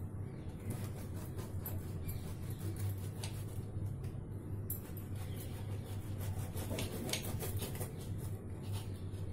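A knife cutting a baked loaf on a glass plate: scattered light clicks and scrapes, thickest a little past halfway, over a steady low hum.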